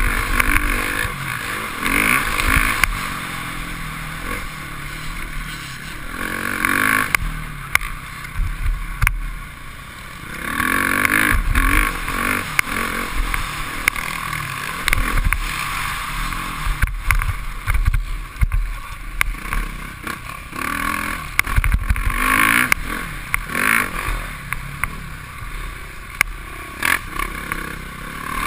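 Motocross bike engine revving hard and backing off again and again as it is raced over a dirt track, heard from a helmet camera, with loud surges and short lulls.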